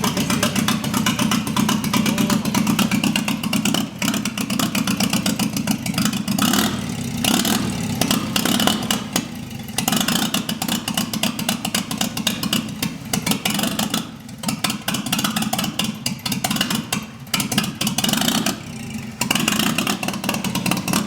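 A freshly rebuilt GAZ-69 four-cylinder engine running, its sound dropping back and picking up again several times as the throttle comes on and off.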